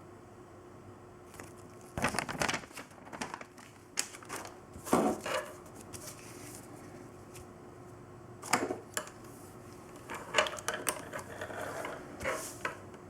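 Irregular clicks, taps and rustles, like small objects being handled, in several short clusters over a steady background hiss and faint hum.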